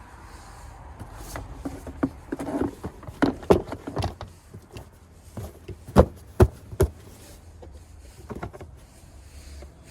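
Irregular clicks and knocks, like hard objects being handled, ending in three sharp knocks in quick succession.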